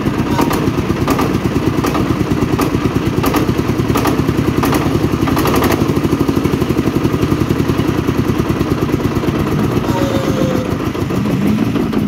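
Dongfeng S1135M single-cylinder diesel engine running steadily with an even, rapid firing knock. The owner is asking whether it makes a strange noise.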